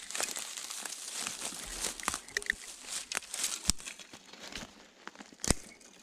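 Footsteps crunching through dry leaves, pine needles and twigs, with brush crackling against clothing and a rifle. There is one sharp snap near the end.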